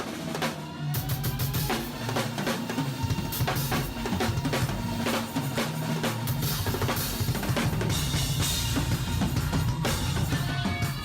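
Drum kit played in a busy, fast gospel-chops style: rapid kick, snare and rimshot strokes packed close together, with steady pitched instruments underneath.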